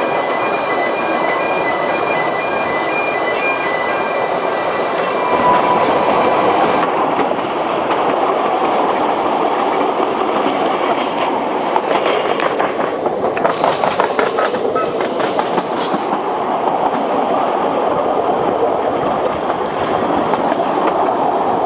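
Narrow gauge steam train running, its wheels squealing thinly on a curve. About seven seconds in the sound changes to the train heard from a carriage: steady running noise with the wheels clicking over the rail joints.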